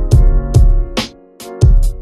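Background music with a strong beat: heavy kick drum and sharp snare hits over sustained chords.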